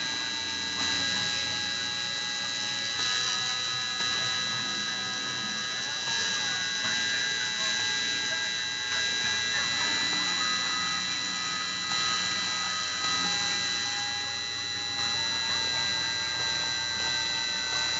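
Dremel rotary tool spinning steadily with a high whine as it mills a pattern into acrylic on a Cyclone PCB CNC, while the machine's stepper motors add shorter whining tones that switch pitch every few seconds as the axes move.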